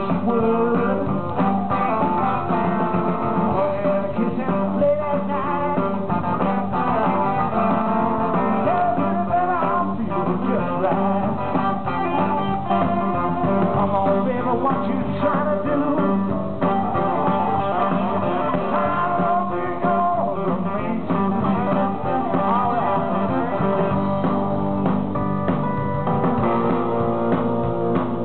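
Live blues-rock band playing: amplified electric guitars to the fore over drums, steady and unbroken.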